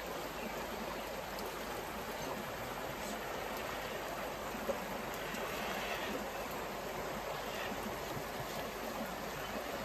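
Creek water flowing steadily over rocks, an even rushing, with one brief tap about halfway through.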